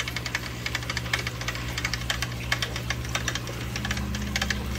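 Resun aquarium top filter's pump running noisily: a steady low hum under a fast, irregular rattling clatter. It is the sign of a pump that stays noisy and delivers no water even with the tray topped up.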